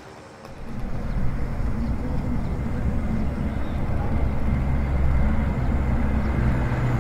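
Car driving with its engine running: a steady low drone that comes in suddenly about half a second in and holds.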